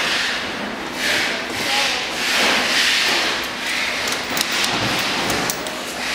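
Hand tool turning a bolt at the rear axle of a ride-on toy buggy's plastic gearbox: repeated scraping and rubbing that swells and fades about once a second, with scattered sharp clicks.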